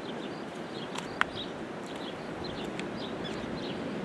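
Small birds chirping in short, scattered calls over a steady background hiss, with a single sharp click a little over a second in.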